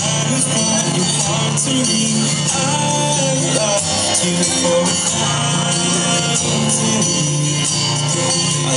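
A song playing, with a singing voice over steady music.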